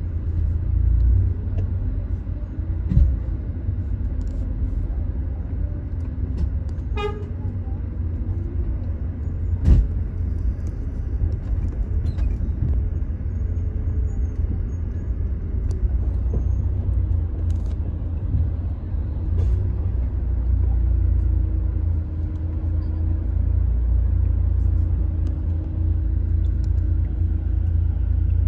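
Road traffic: a low, steady vehicle rumble, with a brief horn toot about seven seconds in.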